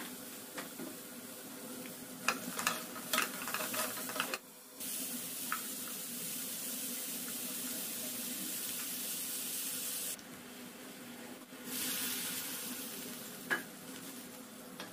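Food frying in oil in a nonstick frying pan: a steady sizzle. A utensil clicks and scrapes against the pan a few times about two to three seconds in, and knocks once near the end. The sizzle breaks off and changes level abruptly twice at cuts.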